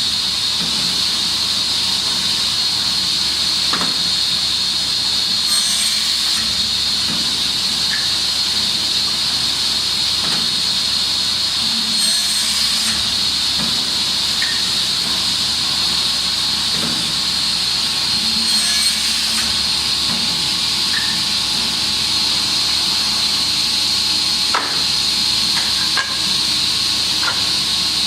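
Automated CNC cross-cut saw with a board magazine running. A steady high hiss runs throughout, with a short burst of higher hiss about every six seconds and scattered clicks.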